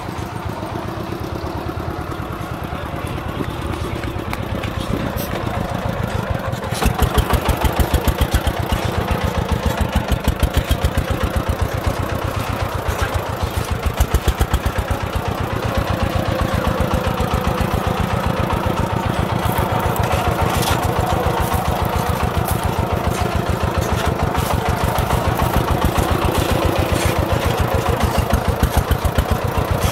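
Công nông farm truck's single-cylinder diesel engine chugging with rapid, even firing pulses as the truck moves slowly, laden with soil; it gets louder about seven seconds in.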